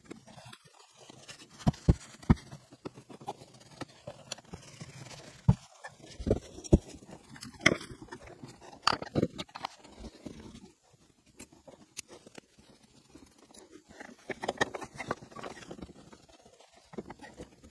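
New floor carpet being pushed and tucked by hand under a truck's dashboard: irregular rustling with scattered knocks and clicks, the sharpest ones bunched between about five and ten seconds in, and a spell of busier rustling near the end.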